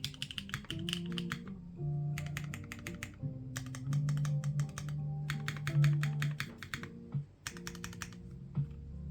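Typing sound test on a Neo65 custom mechanical keyboard: O-ring mounted, foamless, with a POM plate, Dangkeebs Birthday Cake tactile switches and EPBT keycaps. Fast runs of keystrokes come in bursts of about a second with short pauses between, over background music.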